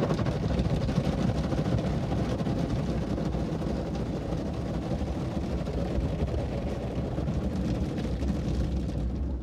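Automatic car wash working over the car, heard from inside the cabin: a steady rush of water spraying against the windshield and body, with rotating brushes sweeping across the windshield near the end.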